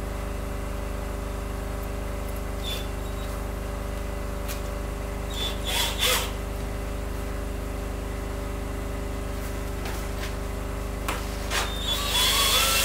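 A cordless drill is handled and set against a window frame, with a few short clicks and knocks, the loudest about halfway through. It starts to whir near the end, all over a steady machine hum.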